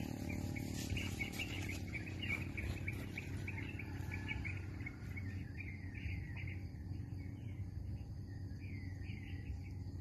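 Small birds chirping repeatedly in short, high calls, some sliding down in pitch, over a low steady background hum.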